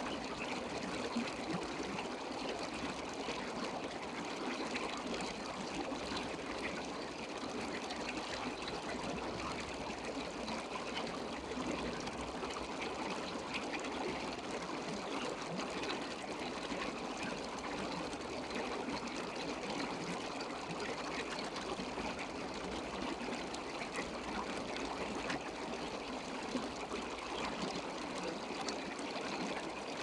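Steady trickling, bubbling water, even throughout, with a fine crackly texture.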